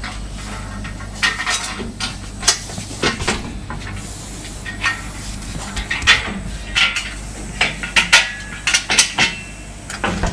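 Irregular metallic clinks and knocks as steel frame parts and loose screws are handled while assembling a roller heat transfer press, over a steady low hum.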